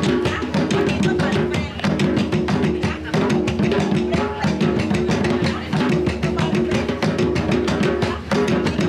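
Puerto Rican bomba music with fast, steady drumming.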